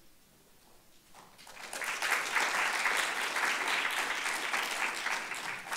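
An audience applauding in a lecture hall, starting after about a second and a half of near quiet and building quickly to a steady round of clapping.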